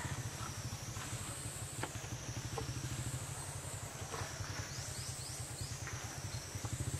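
A small engine running steadily, a low pulsing drone such as a nearby motorbike idling. Over it sits a high, buzzing insect drone that rises and falls in pitch every couple of seconds, and there are a few faint clicks.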